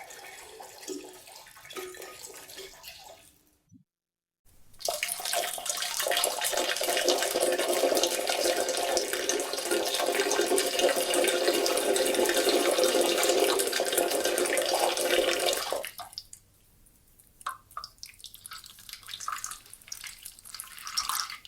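AI-generated sound effect of a person urinating into a toilet bowl: after a brief silence about four seconds in, a steady splashing stream runs for about eleven seconds, then it trails off into a few scattered drips.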